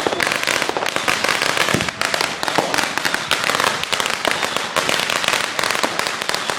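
Fireworks crackling: a dense, continuous string of rapid small pops, with one heavier pop about two seconds in.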